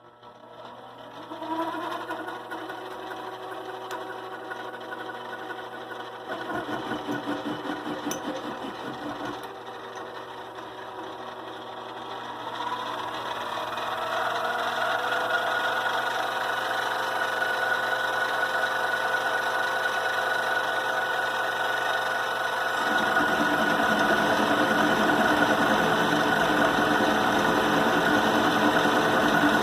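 Vevor CJ210A 8x14" benchtop metal lathe running: it spins up about a second in and whines steadily as the spindle turns. The whine rises in pitch and gets louder around the middle, and a louder low rattle joins near the end.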